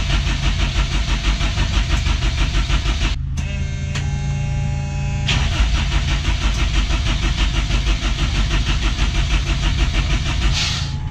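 Drift truck's Honda four-cylinder engine being cranked over by the starter in a steady, rhythmic chug without firing, with a change in tone for about two seconds near the middle. The fuel supply is not yet switched on.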